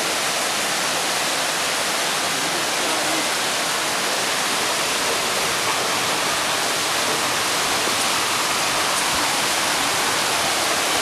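Small river cascade rushing steadily over rocks: a constant, even roar of falling water.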